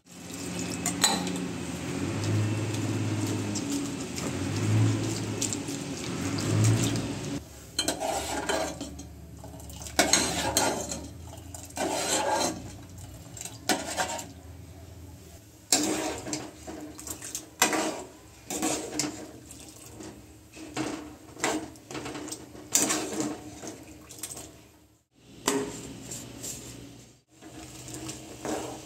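A steady rushing noise for the first several seconds, then repeated clinks and knocks of kitchen dishes and utensils, some close together and some spaced out.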